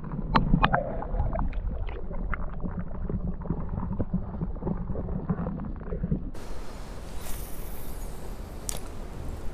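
Muffled creek water heard through an underwater camera: a low sloshing rumble with scattered clicks and knocks. About six seconds in it cuts to open air, with wind buffeting the microphone and one sharp click near the end.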